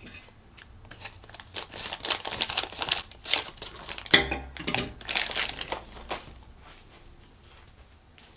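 Plastic packaging crinkling and rustling in uneven bursts as dent puller parts are unwrapped and handled, with one sharp click about four seconds in; the rustling dies down to faint handling noise after about six seconds.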